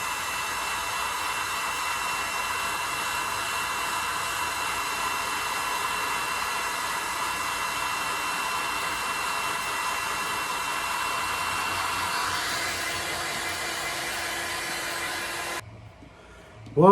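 Heat gun running steadily, blowing hot air with a faint high whine. Its tone shifts about twelve seconds in, and it is switched off suddenly near the end.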